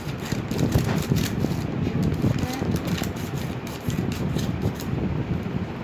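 Rustling and scraping of courier packaging being handled and worked open by hand, with many small crackles.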